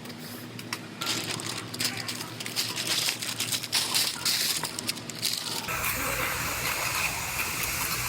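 Masking tape and paper crinkling and crackling as the rocker panel is taped off. About six seconds in, a steady hiss of compressed air starts as chip guard is sprayed from an air spray gun.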